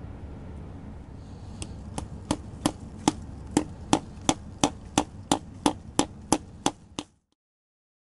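Small hammer tapping a nail into the wood of a ficus trunk to pin a grafted stem in place: about fifteen sharp, light taps, roughly three a second, beginning a couple of seconds in and stopping near the end.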